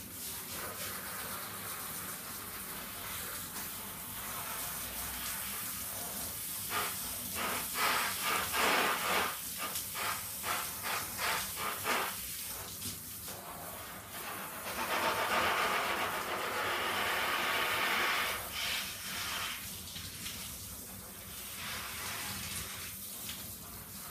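Handheld shower head spraying water onto soaked denim jeans, a steady hiss of running water. The spray wavers in quick pulses near the middle and is loudest for a few seconds about two-thirds of the way through.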